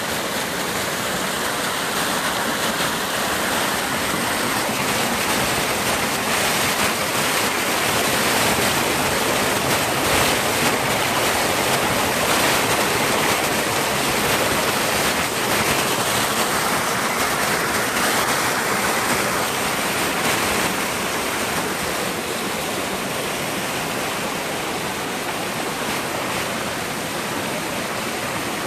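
Stream rushing over boulders in small waterfalls and rapids: a steady, full-bodied rush of water, a little louder for a stretch in the middle.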